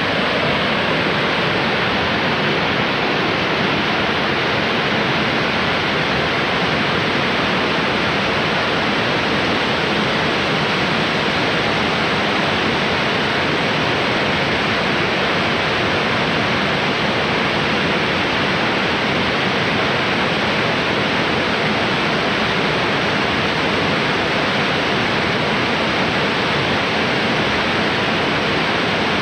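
Loud, steady rush of water pouring over Cumberland Falls, a large high-volume waterfall, an unbroken roar with no change throughout.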